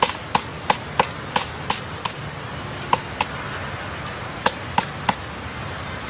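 Woodpecker pecking at wood: sharp single knocks, first a steady run of about three a second, then a few spaced-out strikes.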